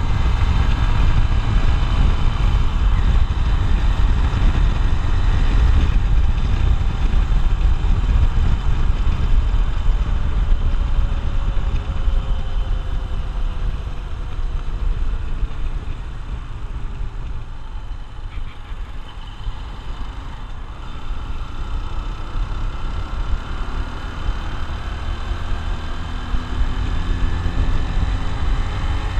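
Honda XR150L's single-cylinder four-stroke engine running while the bike is ridden, under a steady low rumble. The engine note rises and falls. It eases off and goes quieter about halfway through, then picks up again near the end.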